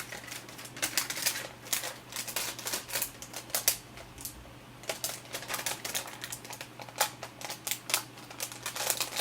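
Rapid, irregular clicking and tapping of small hard objects, several clicks a second, with a short pause about four seconds in.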